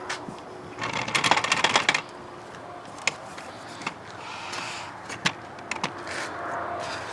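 Steel chain rattling as it is handled: a dense burst of clinking links lasting about a second, followed by scattered single metal clinks and knocks.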